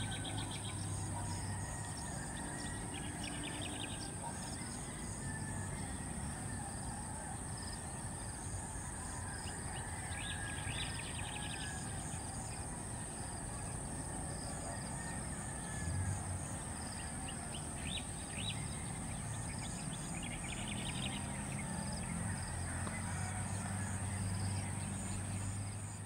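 Field insects chirring: a steady high-pitched buzz, with short rapid trills every few seconds and a low rumble that comes and goes underneath.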